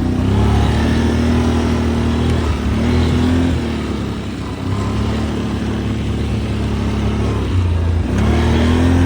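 ATV engine running on the move, with the throttle eased off and opened again a few times. The engine pitch dips briefly about two and a half seconds in and again near four seconds, then climbs back up just after eight seconds.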